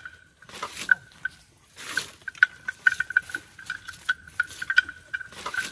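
Bell hanging from an elephant's neck clinking irregularly at one pitch as the elephant walks, with a few short, louder noisy bursts.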